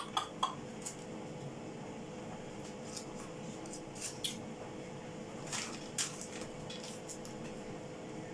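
Soft, scattered crinkles of a plastic bag of grated cheese and light pats of a hand spreading the cheese over a pizza base, over a steady low hum.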